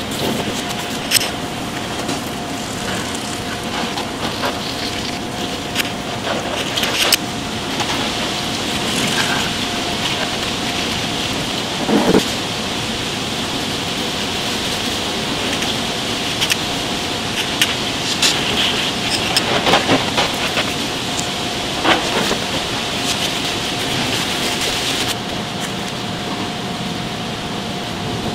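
Steady kitchen background hiss and hum with a constant tone. Scattered short knocks and scrapes come from a knife working an eel on a wooden cutting board.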